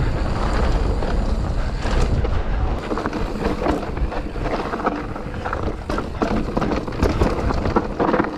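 Wind rumbling on the camera microphone as an e-mountain bike rolls fast down a dirt singletrack. Tyre noise runs under many small clicks and knocks as the bike clatters over bumps.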